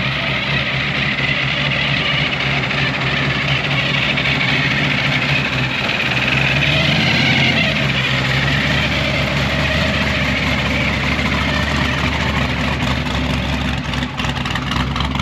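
Drag-race street car engine idling steadily, its pitch rising briefly about seven seconds in as the revs come up a little.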